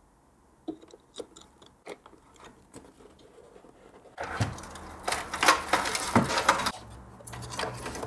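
Small clicks and taps of a graphics card's metal bracket and edge connector being fitted into a mini-ITX board's slot and case, then, about four seconds in, a louder stretch of rustling and clicking from hardware and cables being handled, which stops abruptly.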